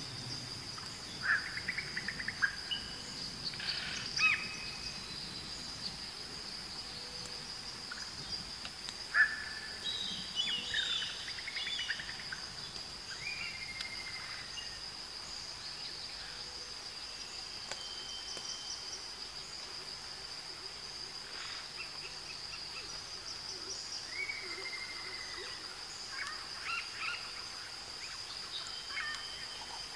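Insects droning steadily at a high pitch, with birds calling now and then in short whistled and chirping phrases; the loudest call comes about nine seconds in.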